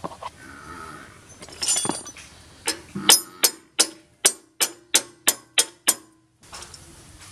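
A steel spanner working a rotary tiller blade bolt: a run of about ten sharp metallic clicks, roughly three a second, with a short ring after each, stopping abruptly.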